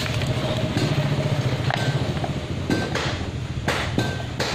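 Stihl MS 381 chainsaw engine idling steadily, with sharp knocks about once a second and a few light clinks as its top cover is handled and fitted.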